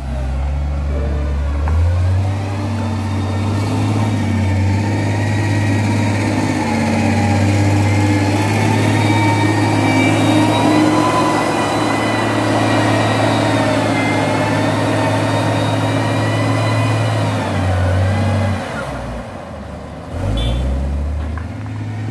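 Road construction machinery's engine running steadily with a low hum, its pitch shifting slightly. It eases off near the end and picks up again about a second later.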